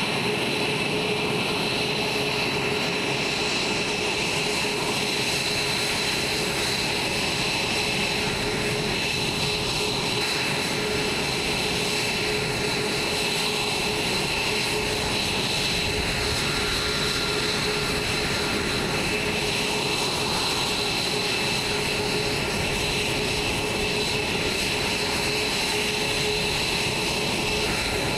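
F-22A Raptor jet engines idling: a steady whine with several held tones over a constant rush of noise.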